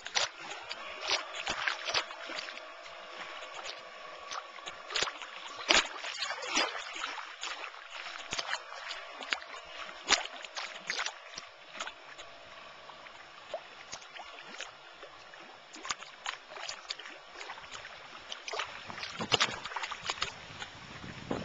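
Choppy water lapping and splashing, with frequent sharp slaps. Beneath it is a faint steady whine from the radio-controlled model fishing boat's motor, which fades out about two-thirds of the way through as the boat heads off.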